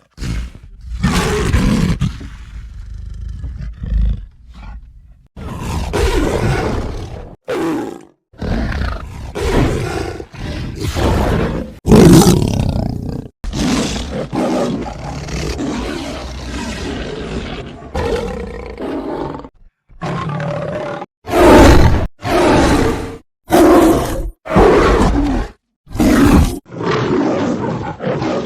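A string of big-cat and creature roars and growls played one after another as separate sound-effect clips, each starting and cutting off abruptly, with brief silent gaps between several of them.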